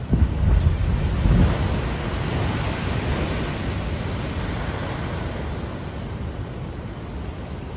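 A large ocean wave crashing against and over a concrete sea wall. Two heavy low booms come in the first second and a half, then a long rush of spray and foaming water that slowly fades.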